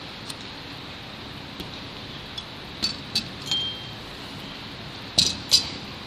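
Small metal frame parts and a hex screwdriver clicking and clinking together as a Tarot RC tray is assembled by hand: a few light ticks, a short ringing ping about three and a half seconds in, and two louder clinks near the end, over a steady low hiss.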